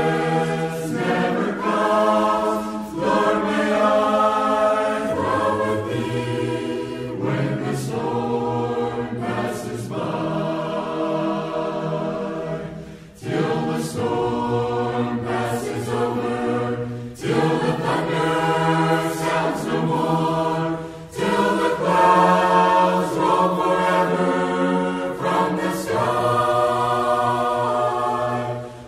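Background music: a choir singing in sustained phrases, with short breaks between phrases.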